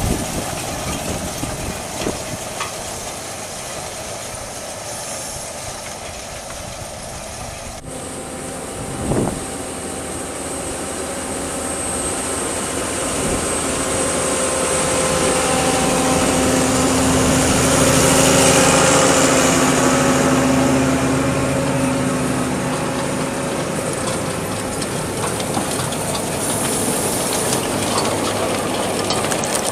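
New Holland T7.190 tractor's diesel engine running steadily as it pulls a working Grimme CS 150 Combi Star clod and stone separator through the soil. It grows louder to a peak a little past the middle, then eases off.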